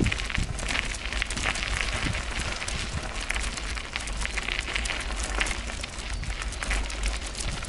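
Bicycle riding over a rough path, heard from the basket on the bike: a dense, steady crackle and clatter from the tyres and the rattling wire-and-wicker cat basket, with wind rumbling on the microphone.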